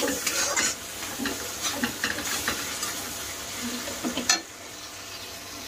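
Metal spatula stirring and scraping onions and ground spices frying in oil in a kadai, with a steady sizzle. Scrapes come every second or so, the loudest about four seconds in.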